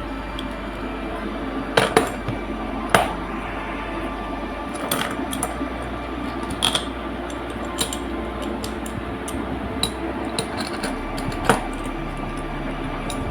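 Small metal parts of a sliding-door hanging wheel clinking and knocking as it is assembled by hand with its screw, nuts and mounting plate. The clicks are scattered and irregular, the sharpest about two and three seconds in.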